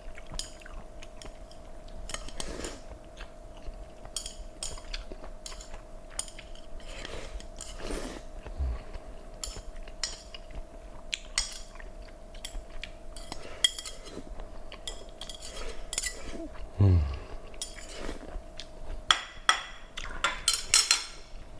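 Metal chopsticks clicking and scraping against plates while food is eaten, with chewing, and knocks of plates and cutlery on a glass tabletop that are loudest near the end. A faint steady hum sits underneath.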